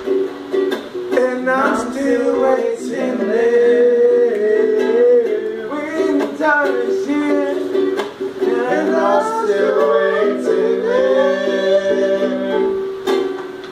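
Ukulele strumming chords with a man's voice singing a melody over it.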